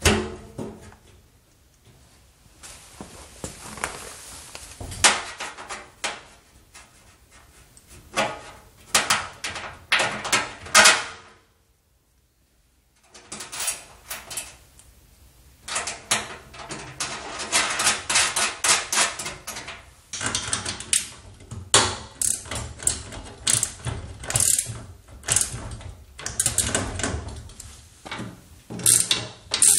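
Hardware being fitted to a steel wheelbarrow tray by hand: uneven runs of metal clicks, clinks and knocks as bolts go through the tray and brackets, with denser rapid clicking in the second half. The sound drops out completely for about a second and a half near the middle.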